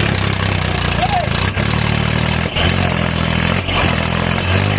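Heavy-machinery diesel engine running steadily with a low drone, its note shifting a few times as the machine works.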